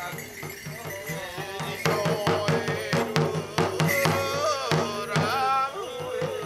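Bitchū kagura music: a large taiko drum beaten in a quick, steady rhythm, joined from about two seconds in by a voice chanting in wavering, sliding tones.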